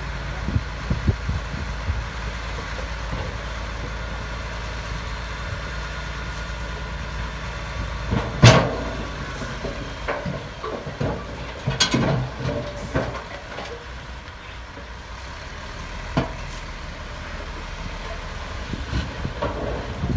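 Heavy diesel construction machinery running steadily, with a string of sharp clanks and knocks over it, the loudest about eight seconds in.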